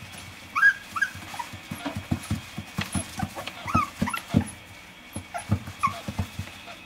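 Puppy giving a few short, high whimpers and squeaks while being handled, over soft knocks and rustling.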